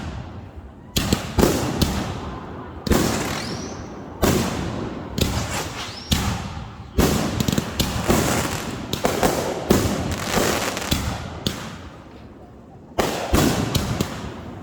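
Consumer fireworks going off: a rapid series of sharp bangs, each trailing off in a tail, with a brief rising whistle about four seconds in and a short lull near the end.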